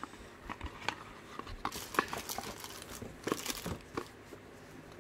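A small cardboard gift box and a leather wallet handled by hand, with scattered taps, clicks and crinkly rustles of packaging. The handling noises bunch up about two seconds in and again around three and a half seconds.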